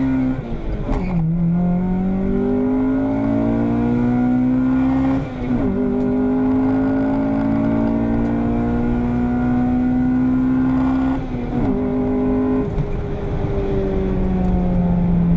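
Car engine pulling hard down a drag strip, its pitch climbing steadily in each gear and dropping sharply at upshifts about one, five and eleven seconds in.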